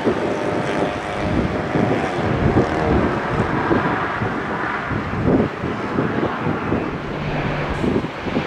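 Airplane engine noise: a continuous rumble with a faint whine about half a second to two seconds in, and wind gusting on the microphone.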